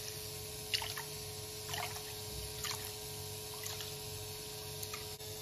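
Cold tap water running into a bowl of rice while a hand swishes and rubs the grains, with a soft splash about once a second.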